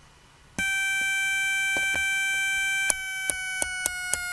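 Small speaker on a Mostek 38P70 (Fairchild F8) single-board computer sounding a steady, buzzy beep tone while its button is held; the tone starts about half a second in. From about three seconds in, the rotary switch clicks about three times a second, and the tone steps lower in pitch at each click.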